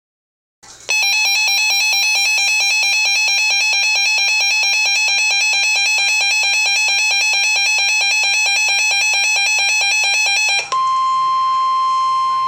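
Emergency Alert System warning tones: a buzzy, rapidly warbling alarm tone for about ten seconds, then a sudden switch to a steady single-pitch tone, the weather service's warning alarm tone, for the last two seconds.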